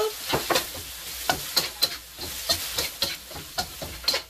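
Chicken, mushrooms and bean sprouts sizzling in coconut oil in a hot wok as frozen mixed vegetables go in, with a utensil scraping and clicking against the wok in irregular strokes.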